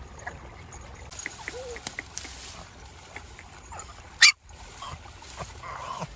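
Puppies whimpering with short cries while grass and leaves rustle as they push through the undergrowth, with one short, loud, high cry just after four seconds in.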